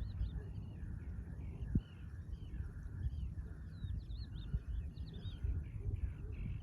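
Birds chirping, one of them repeating a short call about twice a second, over a steady low rumbling noise, with a single sharp knock about two seconds in.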